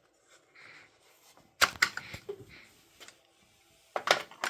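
Several sharp clicks and knocks in two quick clusters, one about a second and a half in and one near the end, over a low, quiet background.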